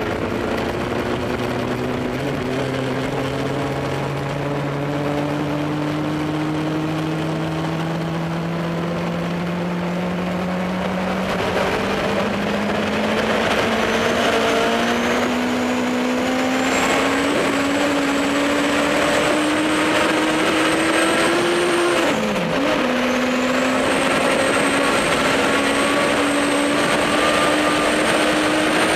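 Ack Attack streamliner's twin turbocharged Suzuki Hayabusa engines pulling hard under full acceleration, their pitch climbing steadily with speed over rushing wind noise. A high whine joins about halfway through. About three-quarters of the way in, the pitch drops sharply and climbs again at a gear change.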